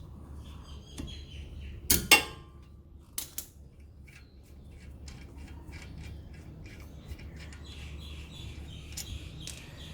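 Hand tools working on the front brake caliper bolts: metal clinks and knocks, a sharp clank about two seconds in, and stretches of rapid clicking like a ratchet wrench turning.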